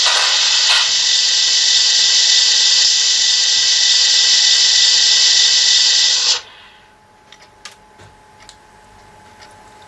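Sound decoder in a Märklin E63 model locomotive playing its electric-locomotive running sound through the small onboard speaker: a steady loud hiss with a few held tones, cut off suddenly about six seconds in when the sound is switched off. After that only faint clicks remain from the model, which runs nearly inaudibly on its new motor.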